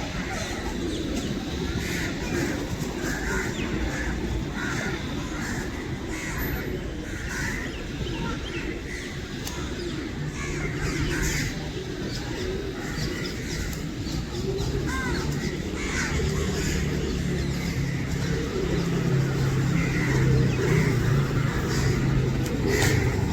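A large flock of birds calling together: many short overlapping calls in a dense chorus. A low steady hum joins in about ten seconds in.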